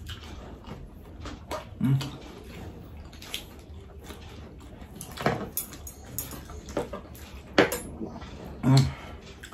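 Close-up eating sounds: chewing and mouth noises with scattered small clicks and taps of food, sauce cup and containers, and two brief low murmurs, near 2 s and near 9 s.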